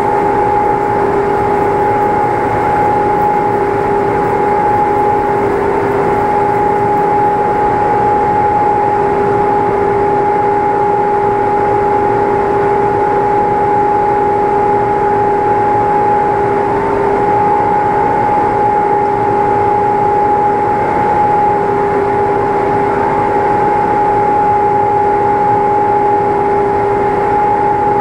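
Steady mechanical hum with a constant pitched tone, unchanging throughout.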